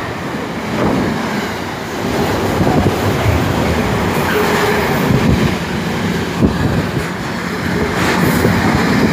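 Freight train of loaded container wagons passing close alongside at speed, a continuous loud rumble with a clatter of wheels on the rails.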